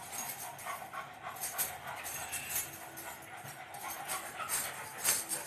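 Small fluffy dog panting, with light clicks and rustles throughout.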